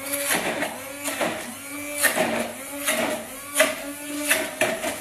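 Handheld stick blender running in a jug, chopping a thick, chunky paste of cashews, garlic, ginger and chili. The motor whine and grinding swell and drop repeatedly, about once a second.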